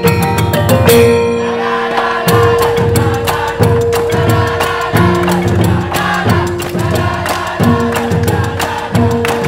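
Music: held, steady notes that change pitch every second or two over a fast, steady run of percussion strikes.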